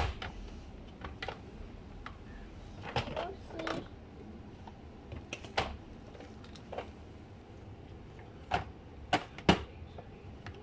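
Light plastic clicks and knocks, scattered and irregular, from a toy plastic fork being pushed into the clips of a plastic toy kitchen case.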